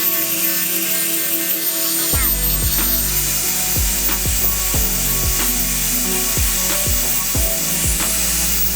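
Hand tool work on wood during knife making: a low steady hum starts about two seconds in, then repeated rasping strokes come about twice a second, over background music.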